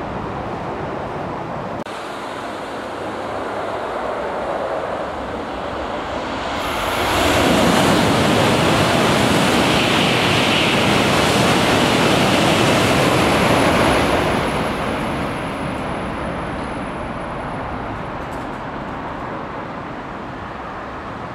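N700-series Shinkansen bullet train passing through a station at high speed without stopping. A rising rush as it approaches, a sudden loud roar of air and wheels for about seven seconds as the train goes by, then a gradual fade.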